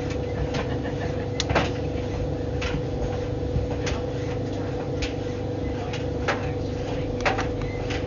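White Knight tumble dryer running with a steady motor hum and a constant tone over a low rumble. About a dozen light clicks and taps come at irregular moments as the load tumbles in the turning drum.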